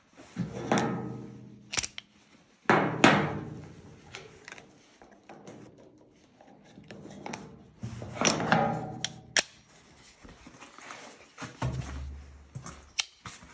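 A break-action flare pistol is handled and loaded with a 12-gauge shell on a steel diamond-plate table. There are three clanks that ring out and fade over a second or more, and a few sharp clicks from the pistol's action.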